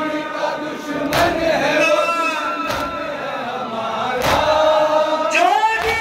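Male voices chant a Shia noha (mourning lament) together in long held notes, led on a microphone. Four sharp chest-beating slaps of matam fall in time, about one every second and a half.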